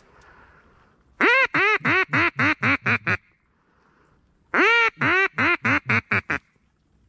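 Duck call blown in the cadence of a hen mallard: two runs of loud quacks, each of about eight notes that start long and get shorter and quicker, the second run starting about a second and a half after the first ends.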